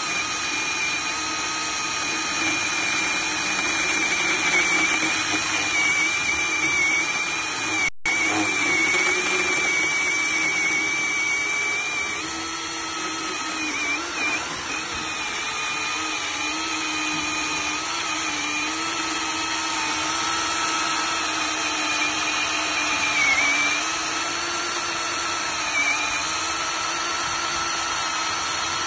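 Mini electric chainsaw's motor and chain running steadily with a high whine, its pitch dipping briefly a few times, with a momentary break about eight seconds in.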